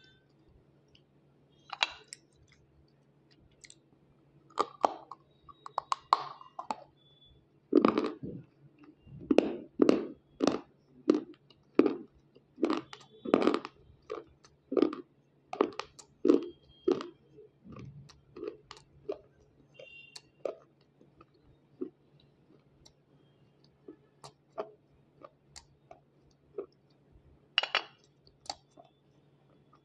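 Close-up crunching and chewing of brittle white unshaped slate pencil: a quick run of crisp bites and chews in the middle, with slower, scattered chews before and after.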